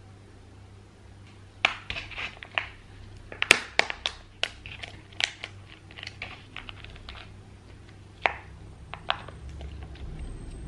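Food preparation sounds: a run of sharp, irregular crunches and clicks that starts about a second and a half in and thins out after about nine seconds.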